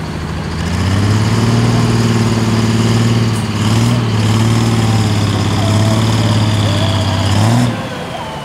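Turbocharged diesel engine of a Pro Stock pulling tractor revving up, held at high revs, then dropping back near the end, with a high whine sliding down as it falls.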